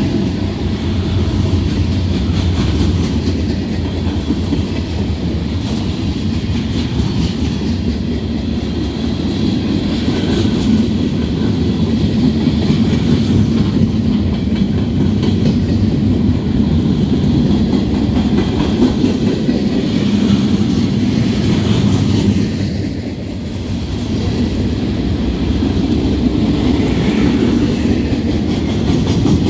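Norfolk Southern freight train rolling past, its cars' wheels clattering over the rail joints in a steady rumble, dipping briefly about three-quarters of the way through.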